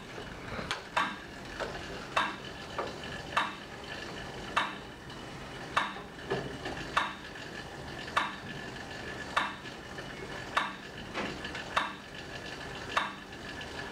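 Stationary cycle ergometer pedalled under load at a steady cadence: a steady whir with a sharp click about every 1.2 seconds and a fainter click between them.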